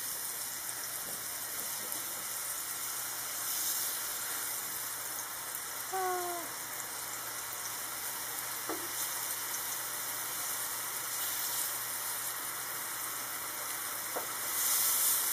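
Banana slices sizzling in hot coconut oil in a nonstick frying pan, a steady high hiss. A slotted spatula moves the slices apart, with a short falling squeak about six seconds in and a couple of faint taps later.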